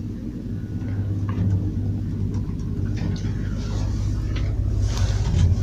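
Old Zremb elevator car travelling between floors, with a steady low hum from the lift and a few faint clicks. There is a short louder hiss about five seconds in.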